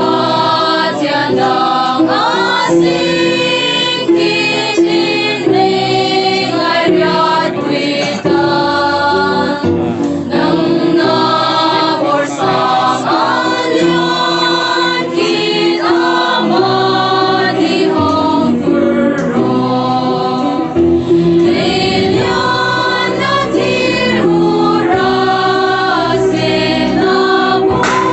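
Choir of young women and men singing a Christian song together, with sustained sung notes.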